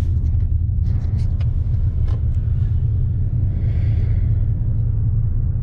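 Steady low rumble of a car being driven, heard from inside the cabin, with a faint hiss swelling about two-thirds of the way through.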